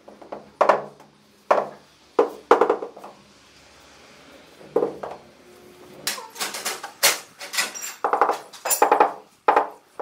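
Knocks and clinks of tiling work on porcelain floor tiles, with tiles and tools struck and set down on the laid tiles: several single sharp knocks in the first five seconds, then a quicker run of ringing clinks and scrapes over the last four seconds.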